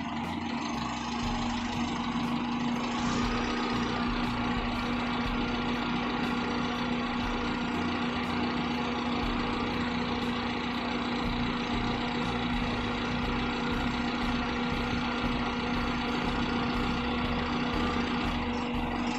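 Daihatsu Taruna EFI four-cylinder engine idling steadily at about 800 rpm with an even, unchanging hum.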